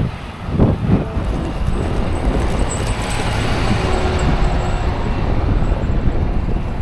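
Blizzard wind buffeting the microphone in a steady rush, with low gusts in the first second and a vehicle passing on the snowy highway near the middle.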